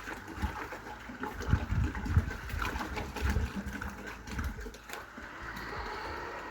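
Insecticide sprayer spraying liquid with a hiss, over irregular low knocks and bumps of handling.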